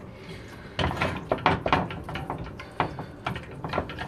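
Silicone whisk beating marmalade and rum in a saucepan, knocking and scraping against the pot in quick, irregular strokes, about four a second, starting about a second in.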